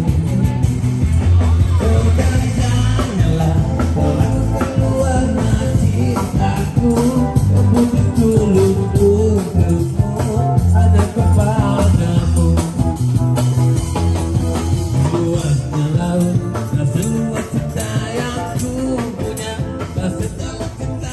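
Music with a singing voice and guitar over a strong bass line.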